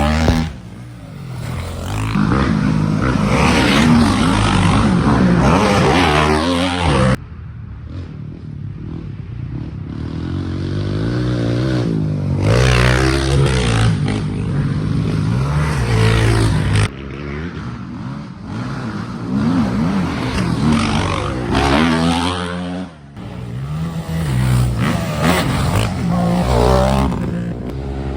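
Dirt bike engines revving up and down, their pitch rising and falling over and over, in several clips that cut off abruptly.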